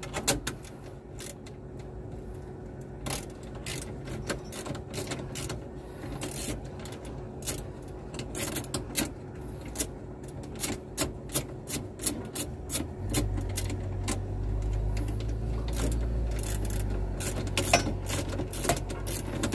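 Ratchet wrench with a deep socket clicking in short irregular runs as a nut is worked loose, with metal tool clinks. A low steady hum comes in about two-thirds of the way through.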